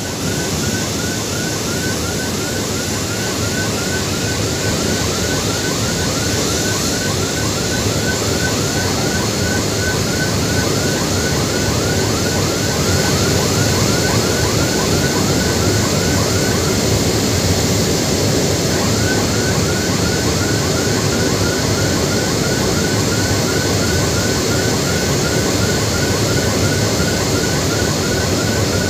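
Steady, loud jet aircraft noise on an airport apron. Over it runs a string of short falling chirps, about four a second, which stop for a couple of seconds past the middle and then resume.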